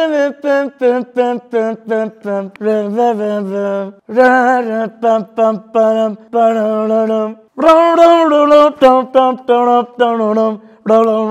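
A man singing unaccompanied, a chant-like tune in short rhythmic syllables with some longer held notes.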